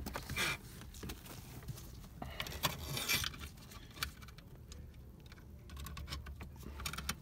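Scattered light clicks, scrapes and rustles of gloved hands tugging a stainless braided brake line through the car floor and working its metal fitting up to a hydraulic handbrake's master cylinder.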